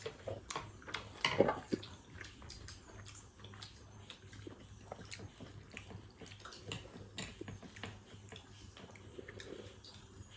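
Close-up eating sounds: wet chewing and mouth clicks, with one louder burst about a second and a half in.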